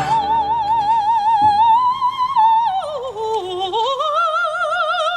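Operatic singing: one high voice with a wide, even vibrato holds a long high note, then falls and climbs back up near the end, over faint accompaniment.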